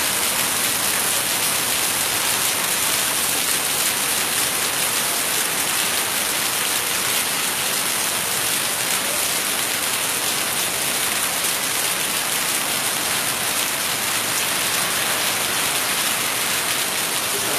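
Heavy tropical downpour: rain pouring down in a steady, unbroken hiss.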